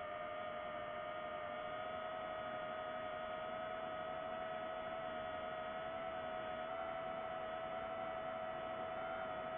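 DJI FPV drone's motors and propellers whining steadily in cruising flight, a high hum holding one pitch that wavers only slightly.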